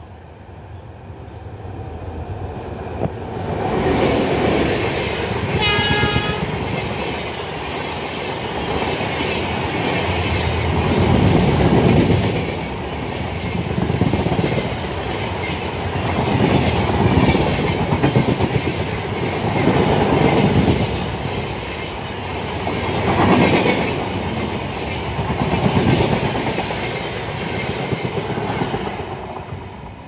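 Sanghamitra superfast express passing close at speed: wheel rumble and clatter of the coaches swelling and fading in waves every few seconds, then dropping away near the end as the last coach goes by. A short blast of an electric locomotive's horn about six seconds in.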